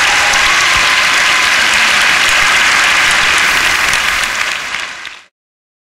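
Audience applauding steadily, thinning out about four and a half seconds in and then cutting off suddenly.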